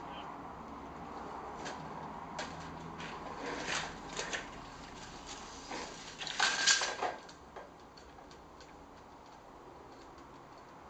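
Venetian blind slats clicking and rattling as a cat pushes through them onto the windowsill: a scatter of light clicks that builds to a burst of clattering about six seconds in.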